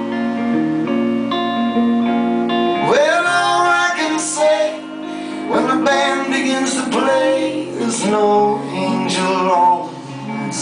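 Live band playing a slow folk-rock song: guitar and held chords, with wordless singing that comes in about three seconds in.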